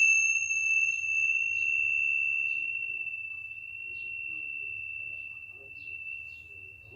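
Tingsha cymbals ringing out after a single strike: one clear high tone that slowly fades away, with a higher overtone that dies out within the first few seconds.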